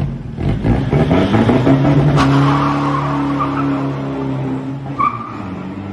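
Diesel pickup truck's engine revving hard as it pulls away, pouring out thick black smoke from heavy over-fuelling. The pitch climbs over about a second and a half, holds high for a few seconds, then drops near the end.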